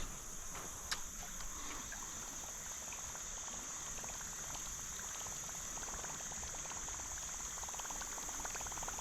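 Insects trilling steadily at a high pitch, with a faint even hiss beneath and a single small click about a second in.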